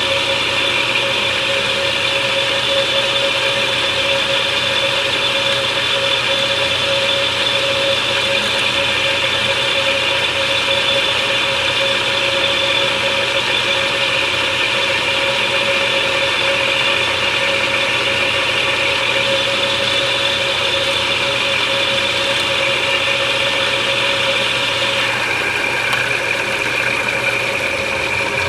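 Benchmaster milling machine running, its spindle turning a half-inch Forstner bit that cuts into a wooden rifle stock: a steady mechanical whine. Its pitch shifts about 25 seconds in.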